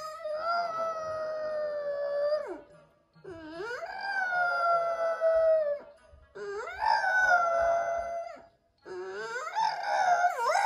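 French bulldog howling: four long howls, each opening with a low "brr" that swoops up into a held "awooo", with short pauses between them.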